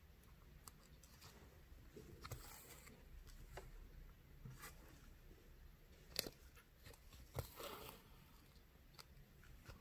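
Faint scattered clicks and rustles of hand bead embroidery: needle and thread drawn through the felt backing and beads being handled, with a sharper tick about six seconds in and another about a second later.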